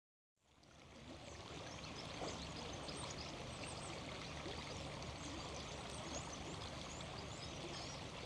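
Small river flowing over shallows, a steady babbling of water that fades in within the first second.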